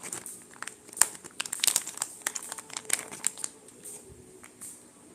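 Packaging crinkling and crackling as it is opened and handled by hand, a dense run of sharp crackles that thins out and gets quieter near the end.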